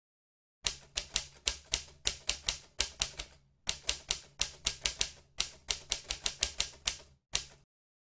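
Typing sound effect: a rapid run of key clicks, about five a second, that accompanies on-screen text appearing letter by letter. It breaks off briefly about three and a half seconds in and stops shortly before the end.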